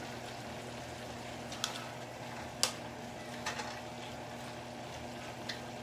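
Diced jackfruit cooking in a nonstick pan, stirred with a wooden spoon: faint sizzling with a few light taps of the spoon on the pan, over a steady low hum.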